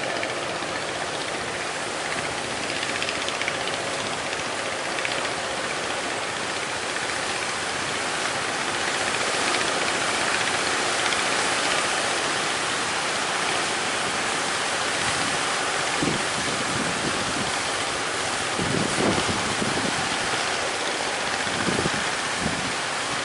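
Strong wind and rough, choppy sea water making a steady rushing noise. Several low wind blasts buffet the microphone in the last third.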